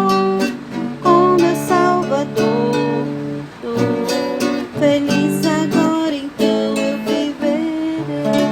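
Acoustic guitar (violão) playing a gospel hymn melody over plucked chords, with no singing.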